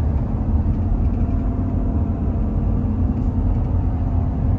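Steady low rumble of a car driving along, engine and tyre noise as heard from inside the cabin.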